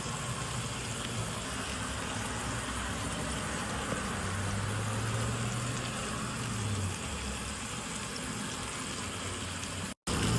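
Smash burger patties sizzling on a Blackstone flat-top griddle, a steady frying hiss. A low hum joins in for a few seconds in the middle, and the sound cuts out for a moment near the end.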